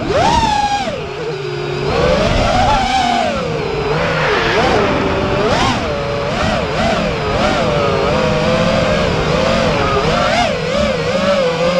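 FPV racing quadcopter's DYS 2306 2500kv brushless motors and propellers whining in flight, the pitch swooping up and down constantly with throttle changes. A sharp rise right at the start, then many quick wavering climbs and dips. Rushing air noise underneath, heard from a camera mounted on the quad.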